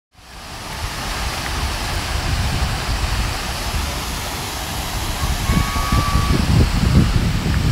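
Buckingham Fountain's water jets splashing into its pool, a steady rushing hiss, with wind buffeting the microphone in heavier gusts from about five seconds in.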